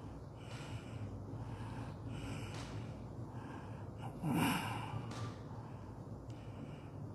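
Soft breathing close to a microphone over a steady low hum, with one louder breath or sigh about four seconds in.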